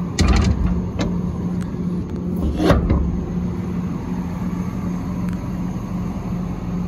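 Six-cylinder turbo diesel of a Hino 268 dump truck idling steadily with a low hum, with two brief bumps, one just after the start and one near three seconds in.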